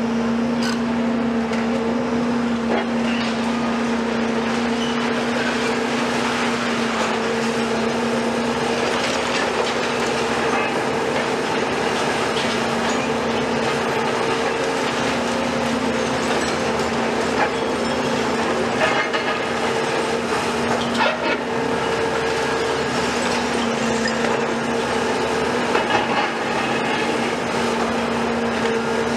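Hydraulic demolition excavators, a Volvo EC250 and a CAT 374F long-front, running steadily with a constant engine and hydraulic drone. A few knocks and cracks of concrete rubble come from the Volvo's demolition attachment working the debris, mostly in the second half.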